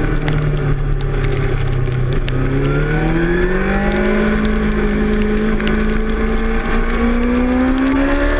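2006 Suzuki GSX-R600's inline-four engine heard onboard, held at low revs through a slow corner, then pulling steadily higher in pitch as the bike accelerates out of it.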